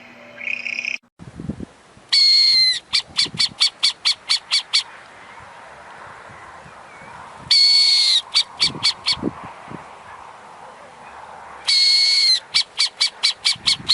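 Owl calling three times: each call is a loud, high half-second note that dips slightly in pitch, followed by a quick run of short clipped notes, about four a second.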